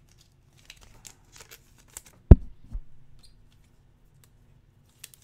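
Trading cards and their packaging being handled on a tabletop: light clicks and rustles, with one dull thump about two seconds in and a smaller knock just after.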